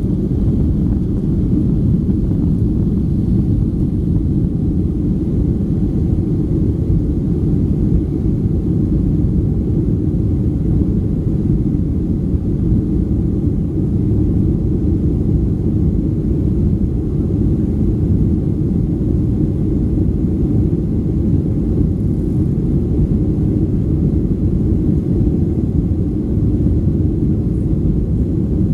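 Boeing 757-200's jet engines at high power during liftoff and climb-out, heard inside the cabin as a loud, steady, deep rumble.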